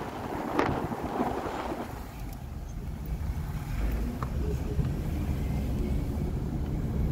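Low, steady rumble of a car driving along a paved road, heard from inside the cabin, with a couple of brief gusts of noise about half a second and a second in.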